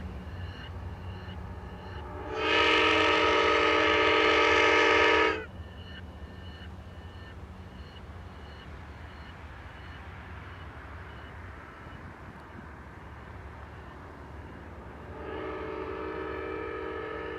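A train's multi-chime air horn played backwards: one long, loud blast that swells in and cuts off sharply, then after a long gap a fainter blast near the end. A grade-crossing bell dings faintly under the first few seconds, over the steady low rumble of the train.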